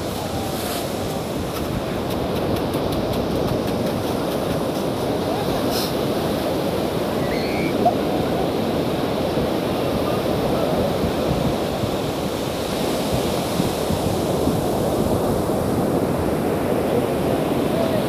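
Ocean surf breaking and washing up a sandy beach: a steady, even rush of waves, with one brief sharp click about halfway through.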